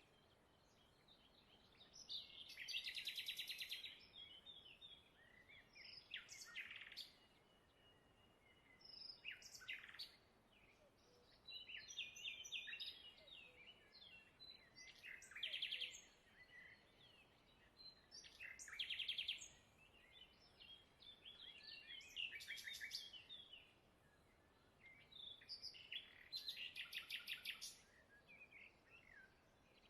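Faint birdsong: bursts of high chirping phrases and rapid trills every few seconds, with quiet gaps between them.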